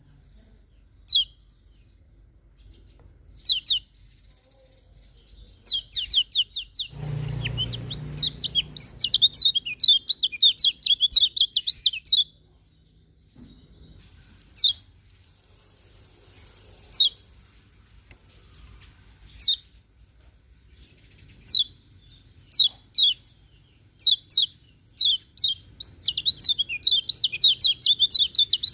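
Kecial kuning white-eye singing: short, high, falling chirps, some alone a couple of seconds apart and some run together into long rapid twittering strings, one from about six seconds in and another near the end. A low rumble is heard alongside the first string.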